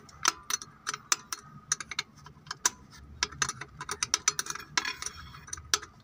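Ratcheting box-end wrench clicking in quick, irregular runs as it turns the bleeder screw on a diesel engine's fuel filter, opening it to bleed air out of the fuel line.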